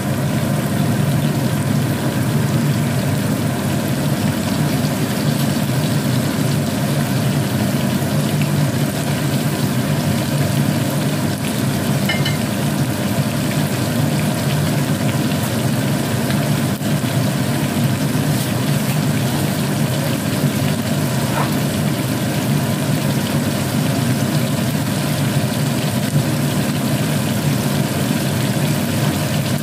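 Cornstarch-coated chicken pieces deep-frying in hot oil, a steady sizzle, over a steady low hum.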